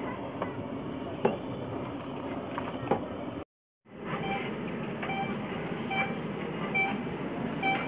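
A long metal ladle clinks a few times against a large aluminium cooking pot over a steady outdoor background hiss. After a brief break in the sound, a short high chirp repeats about every 0.8 s.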